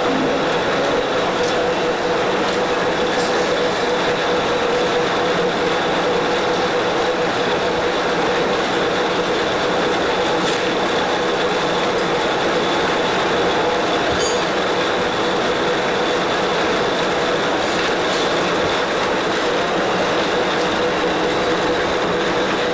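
Heavy-duty all-geared lathe running steadily, a constant mechanical noise carrying a steady mid-pitched whine and a fainter high whistle.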